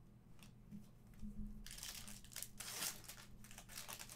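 A few light ticks of cards being handled, then, from about a second and a half in, a foil trading-card pack wrapper crinkling as it is handled and torn open.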